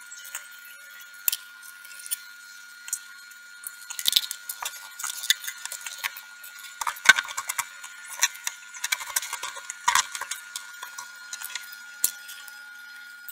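Soldering iron tip scraping and tapping on the solder joints of a small circuit board while desoldering: irregular light clicks and scratches, thickest in the middle stretch, over a faint steady high tone.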